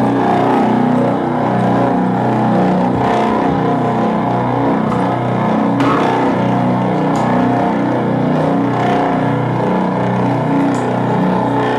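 Live band playing loud: a dense, sustained distorted drone with a few sharp crashes, likely cymbals.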